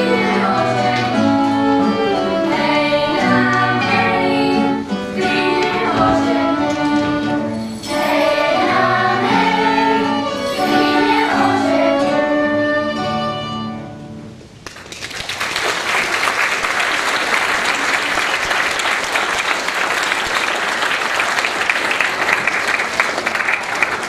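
Children's choir singing with violin, cello and other instruments. The song ends about fourteen seconds in, and the audience breaks into applause.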